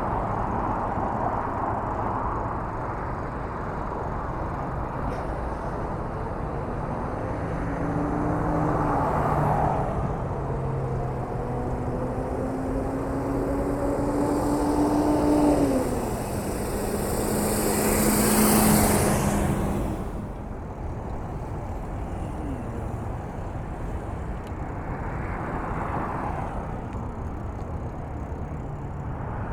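Street traffic passing: vehicle engines rise in pitch as they pull away, one after another, over a steady rumble. The loudest vehicle passes with a hiss about two-thirds of the way through.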